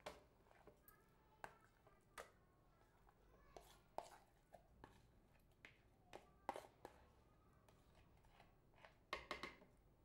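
Faint, scattered clicks and knocks of a bowl being scraped out over a blender jug as cultured cream is poured in, with near silence between them.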